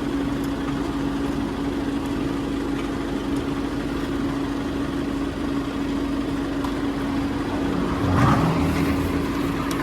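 A motor vehicle running steadily, with a constant hum over even noise. A brief louder noise comes about eight seconds in.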